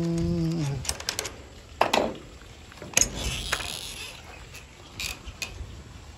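A man's voice held on one steady note at the start, then a few sharp clicks and knocks with a short rustle in between, the sounds of handling at close range.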